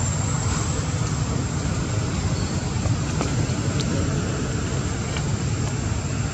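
Steady low rumble with a hiss over it, outdoor background noise with no distinct event, and a faint thin high whine held throughout.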